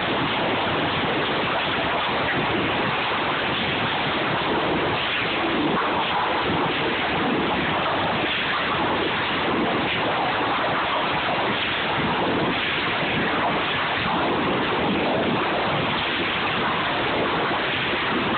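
Loud, steady machinery din of a sawmill trim line: a dense, even noise with no single cut or knock standing out.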